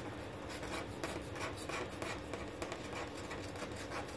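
The latex coating of a scratch-off lottery ticket being scraped away in quick, repeated strokes.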